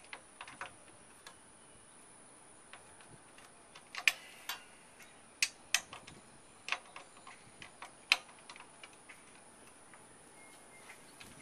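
Scattered sharp metallic clicks and clinks from hand tools working on a pickup's side-step mounting bolts, irregular, with the loudest about four and eight seconds in.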